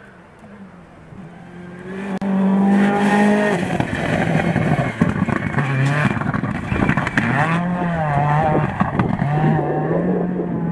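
Rally car engine revving hard as it passes close on a gravel stage, its pitch falling and climbing with the gear changes. It is faint and distant at first and turns loud about two seconds in, with the hiss of tyres on loose gravel underneath.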